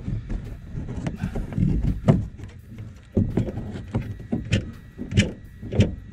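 Metal clunks and rustling as a replacement MagneRide front strut is worked into the wheel well. From about three seconds in come regular knocks, about three a second, as a pry bar levers the strut onto the lower control arm.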